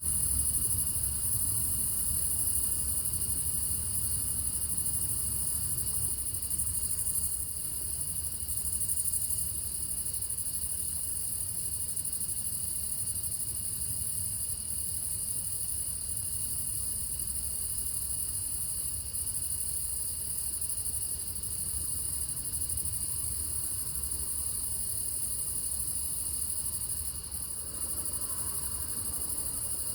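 Night ambience of crickets trilling steadily in a dense chorus, with a low rumble underneath.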